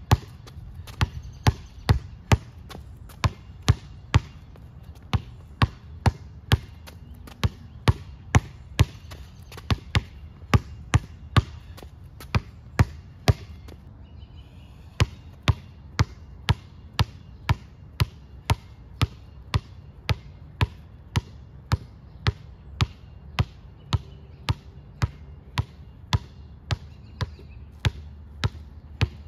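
A basketball dribbled hard on a concrete court: a steady run of sharp bounces, about two a second. The bouncing stops briefly about halfway through, then starts again at the same pace.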